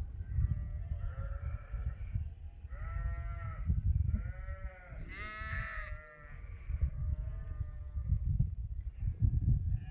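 A flock of sheep bleating, about six separate calls of roughly a second each, the loudest around five seconds in, over a steady low rumble.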